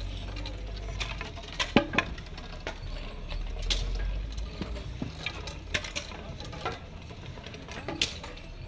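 A walking procession of monks carrying long wooden staffs: scattered sharp knocks and clicks at uneven intervals over a low rumble that fades out about halfway through.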